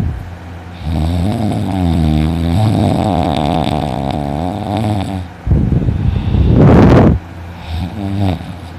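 A sleeping man snoring loudly. A long, wavering, pitched breath lasts about four seconds. A louder rasping snore follows about five and a half seconds in, and a shorter one comes near the end.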